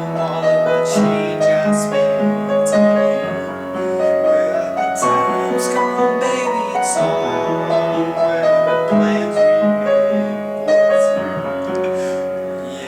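Instrumental piano music: held chords changing every second or so, with short sharp accents on top.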